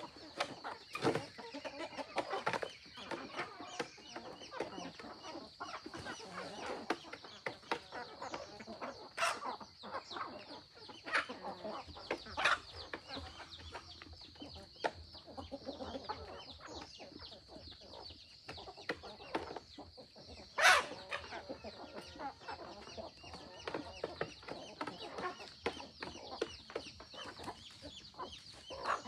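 Free-range chickens clucking, over a steady high-pitched buzz. A few sharp knocks are heard, the loudest about 21 seconds in.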